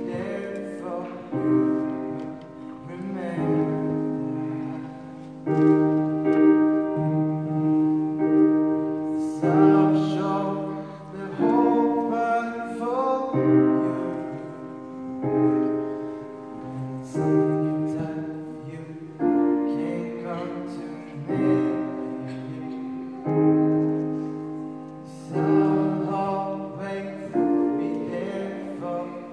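Piano playing a slow piece in held chords, a new chord struck about every two seconds.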